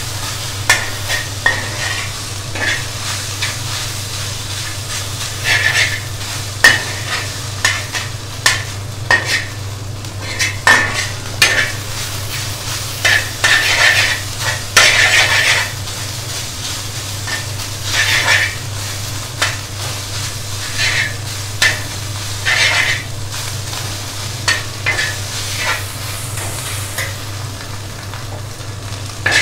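Okra and egg sizzling as they fry in a pan, stirred with a steel spatula that scrapes and clinks against the pan at irregular intervals. A low steady hum runs underneath.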